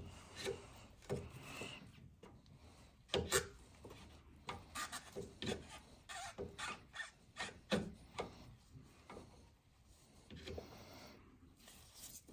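Rubber coolant hose being twisted loose from a plastic coolant reservoir: irregular rubbing and scraping of rubber on plastic, with scattered short clicks and knocks.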